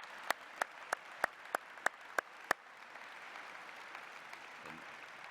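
Audience applauding. One nearby pair of hands claps sharply about three times a second until about halfway through, over a steady wash of applause from the room.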